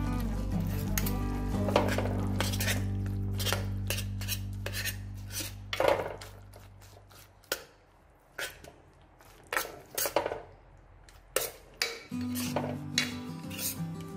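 Metal ladle clinking and scraping against the inside of a glazed clay pot while stirring a thick, chunky sauce: a run of separate knocks and scrapes. Background music with low sustained notes plays underneath, fading out about halfway and returning near the end.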